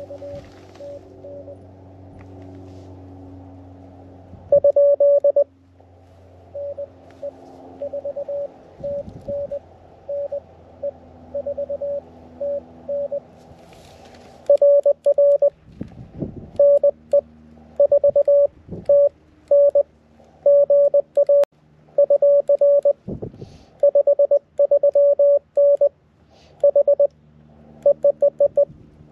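Morse code (CW) from a portable QRP ham transceiver: a single steady mid-pitched beep keyed on and off in dots and dashes. It is fainter for the first half over a hiss of band noise, then much louder and busier from about halfway.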